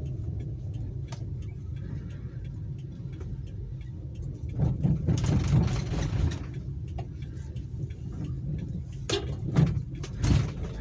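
Car being driven, heard from inside the cabin: steady engine and road rumble, with a louder rushing stretch a few seconds in and a few short loud bursts near the end.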